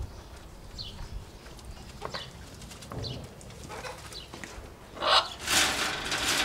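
Parrots calling: short chirps about once a second, then a loud, harsh squawk about five seconds in.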